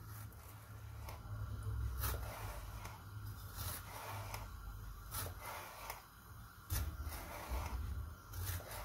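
Chef's knife slicing a red bell pepper into thin strips on a plastic cutting board, a soft cut-and-tap about once a second.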